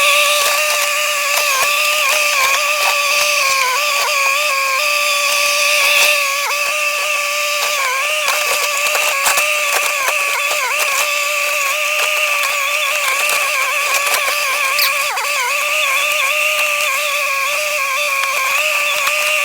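Kubota mini skid steer loader working at high revs, its engine and hydraulics making a steady high whine that dips briefly in pitch under load. Scattered knocks, cracks and rattles come from the shed being broken apart.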